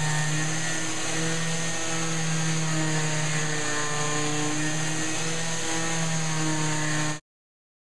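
Festool half-sheet orbital sander running on a hardwood door frame, its dust-extractor vacuum drawing through the pad: a steady whir over a hiss, the pitch wavering a little as the sander is pushed back and forth. The sound stops abruptly near the end.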